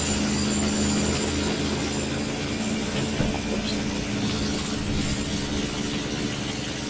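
A steady, low hum of an engine running, with a thin high whine above it. A single small click, about three seconds in.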